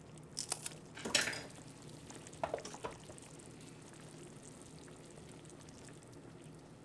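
Kitchen scissors snipping a green cheongyang chili pepper into a pot: a run of short snips in the first three seconds, the loudest a little after one second. Under them the pot of soup bubbles steadily at the boil.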